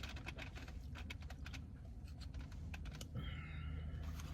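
Close-up eating sounds: a quick, irregular run of small clicks and crackles from chewing and handling the food, over a steady low hum. A brief faint tone comes in about three seconds in.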